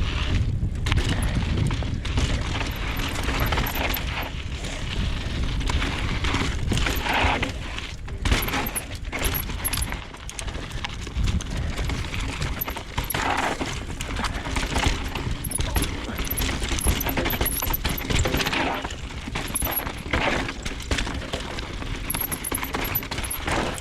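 Mountain bike running down a rough dirt trail: a steady, dense rattle and clatter from the bike and its tyres over bumps, with many sharp knocks throughout.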